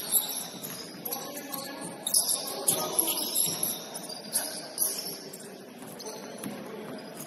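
Basketball game on an indoor court: sneakers squeaking on the floor, the ball thudding now and then, and indistinct players' voices.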